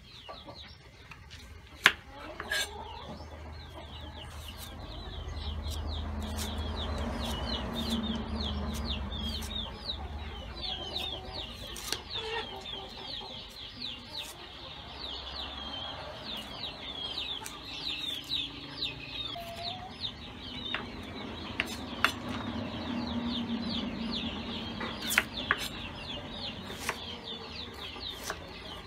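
Knife clicking and tapping on a wooden chopping block as an onion is peeled and cut, with chickens chirping steadily throughout and a low rumble that swells twice.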